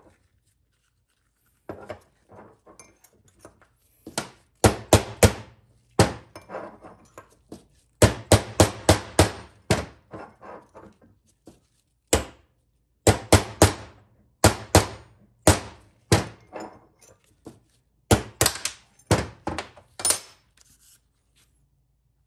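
Hammer tapping a small chisel to drive a brass bushing out of a Ford 4R100 sun gear: sharp metal taps in quick bursts of several a second, with short pauses between bursts.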